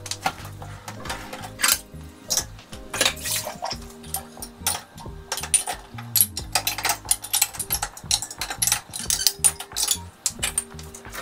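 Pots, pans, a lid and cups clinking and clattering against each other and the dishwasher's wire racks as they are handled, many sharp knocks in quick succession.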